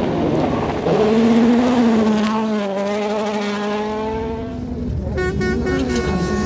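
Rally car's turbocharged four-cylinder engine at full throttle on a gravel stage, its revs jumping up about a second in and held high. About five seconds in it cuts to another car's engine, which comes in with a quick burst of crackles.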